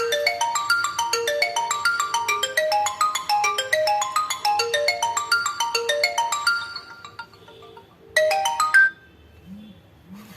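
Infinix Hot 10 Pro ringtone melody of quick repeating notes, stopping about seven seconds in; a brief snatch of it plays again just after eight seconds.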